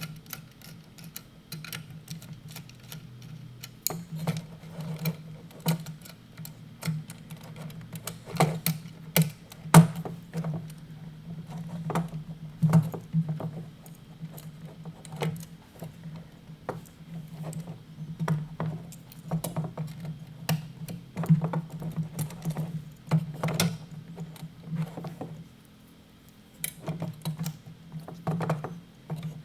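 Irregular clicks and taps of a small screwdriver and stiff stripped wires against a plastic pump-controller housing, as wires are pushed into a screw terminal block and screwed down.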